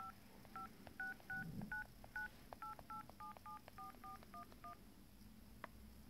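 iPhone 6 Phone-app keypad playing touch-tone (DTMF) beeps as digits are tapped in: about fourteen short two-note beeps over nearly five seconds, coming in pairs for repeated digits. A single click follows near the end.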